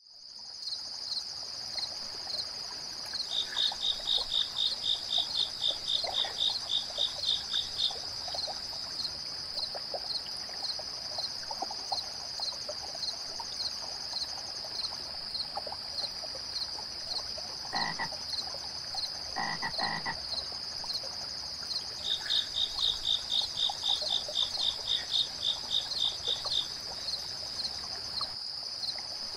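Summer-night nature soundscape: a steady, shrill chorus of chirping insects with rhythmic trills at about four pulses a second, over a soft hiss of flowing water. A few short, low croaks come in near the middle.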